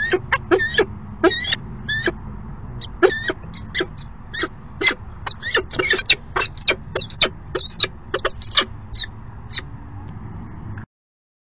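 Peregrine falcons calling at the nest during an incubation changeover: a long run of short, sharp, high calls, about two to three a second and irregular, that stops abruptly near the end.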